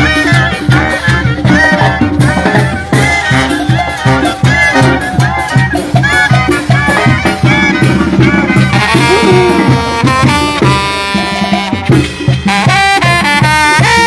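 Mexican banda brass band playing a fast piece: a tuba bass pulses on the beat under trumpets and other brass carrying the melody, with drums. Partway through, the brass hold long sustained notes before the beat picks up again.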